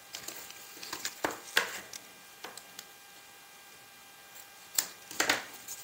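Light clicks and rustles as double-sided tear-and-tape is pulled from its roll and pressed onto cardstock, then a sharp click and a short scrape near the end as scissors snip the tape.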